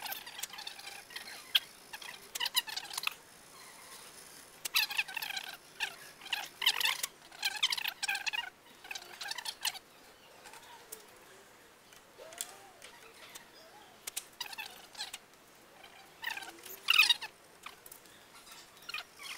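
Short scratchy squeaks of hand work rubbing on the sculpture's surface, coming in irregular bursts a second or two long, several in the first half and the loudest near the end.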